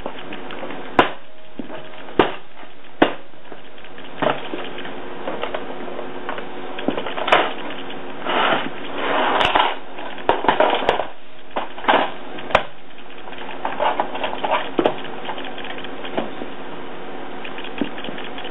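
A moneybox being stomped and kicked under Birkenstock sandals, giving sharp cracks and knocks every second or so. There is a stretch of crunching and grinding about eight to eleven seconds in, all over a steady background hiss.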